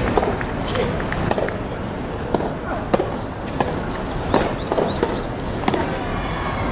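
Soft tennis rally: a string of sharp pops, at uneven spacing, from rackets striking the soft rubber ball and the ball bouncing on the hard court.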